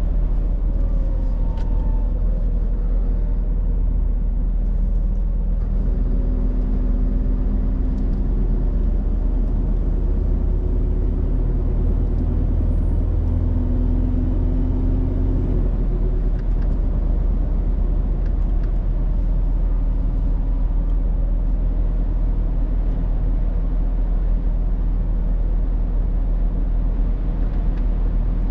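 Heavy truck driving along, a steady low engine drone and road rumble; the engine note grows stronger for about ten seconds in the middle, then settles back.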